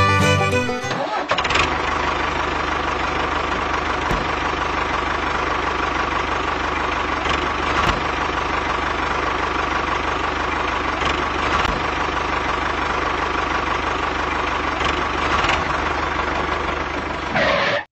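A tractor's diesel engine running steadily with an even low chug. It starts about a second in, as music cuts off.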